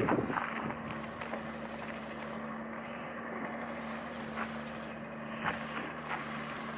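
Steady vehicle running noise: a low, even hum over a rushing sound.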